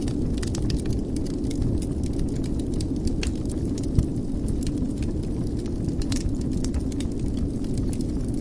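Wood fire burning in a fireplace: a steady low rumble of the flames with irregular crackles and small pops, one sharper pop about four seconds in.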